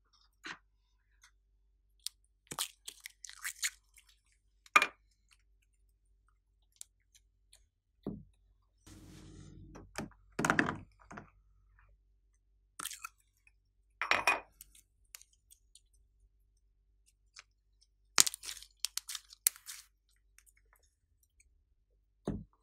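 Slime being squeezed and mixed by hand, giving scattered crunchy, crackling squishes and sharp clicks with quiet pauses between them.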